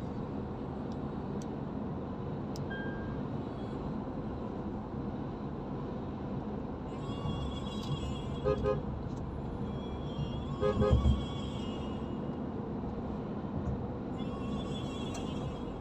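Steady road and engine noise inside a moving car's cabin, with a car horn tooting twice, each time a quick double beep, about two seconds apart midway through.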